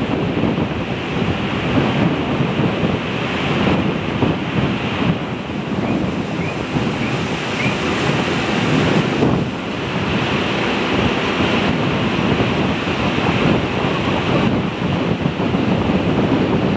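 Strong wind blowing across the microphone: a loud, uneven rushing noise.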